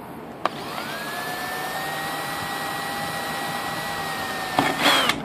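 Ryobi 18V cordless drill with a 3/32-inch bit drilling a pilot hole slowly through the thin metal lid of a mint tin. A click as the trigger is pulled, then the motor whine rises and holds at a steady pitch, and near the end it winds down with a short burst of noise.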